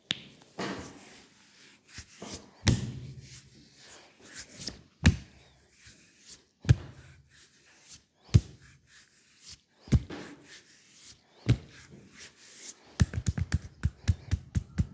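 Percussive massage strikes on a leg: single sharp slaps about every one and a half to two seconds, then near the end a fast, even run of strikes, about five a second.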